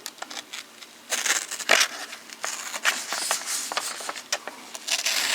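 Blade of a Hart 4-in-1 folding knife slicing through a sheet of copy paper: papery rustling and crackling in short, uneven strokes, louder near the end. The factory edge cuts but is not real sharp.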